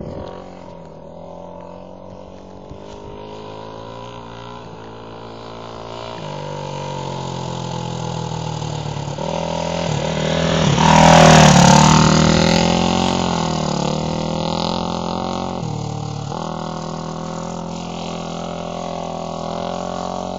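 Honda 450 dirt bike's single-cylinder four-stroke engine running while ridden on ice, its pitch shifting several times with the throttle. It grows louder to a peak with a brief hiss a little past halfway, then fades as the bike rides away.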